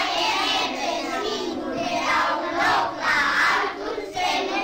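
A class of children answering together in a loud chorus, many young voices chanting a short phrase in unison, 'Mâța e ființă! Ca omul!', in several phrases with short breaks between them.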